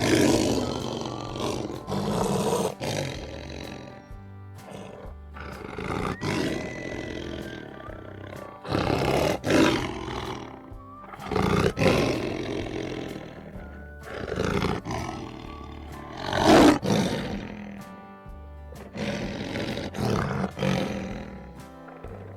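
Lions roaring and grunting in a series of separate calls of one to two seconds each, the loudest about two-thirds of the way through, over background music.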